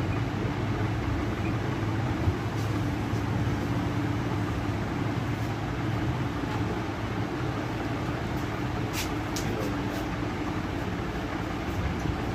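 Steady low mechanical hum with a rushing noise, like a motor or fan running, with a few faint ticks about three-quarters of the way through.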